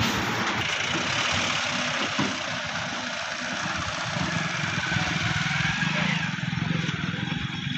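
Vehicle engine running steadily with a low hum, under a dense wash of background noise.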